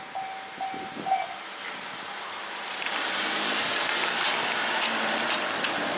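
Japanese railway level-crossing warning bell ringing its repeated ding about twice a second, then stopping about a second in. Then a steady rushing hiss with scattered sharp ticks rises and stays loud.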